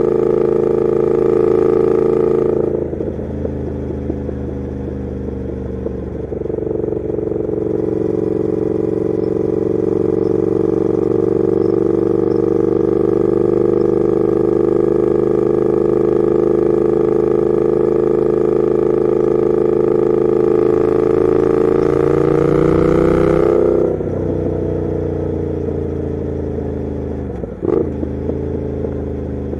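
Triumph Thruxton RS parallel-twin engine through a Weslake exhaust while riding. It backs off about three seconds in, then pulls again in a long steady drive. Around twenty-four seconds in the throttle closes and the note falls on the overrun, with a short sharp blip near the end.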